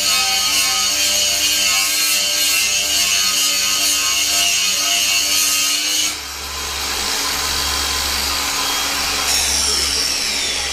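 Angle grinder grinding rust off a quarter-inch steel plate, a steady loud grinding noise with ringing tones from the plate. About six seconds in it cuts abruptly to a quieter, duller noise with a low hum.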